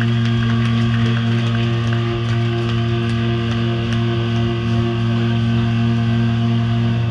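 Live doom metal band holding one low, heavily distorted note on amplified guitars, a steady drone that does not change.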